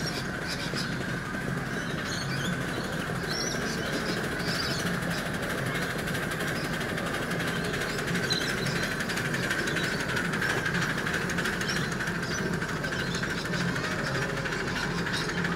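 Ride-on miniature live-steam locomotive No. 5717, a model of a GWR 5700-class pannier tank, running past hauling a loaded passenger car, with a steady running noise and fine clicking of the wheels on the rails. Birds call over it.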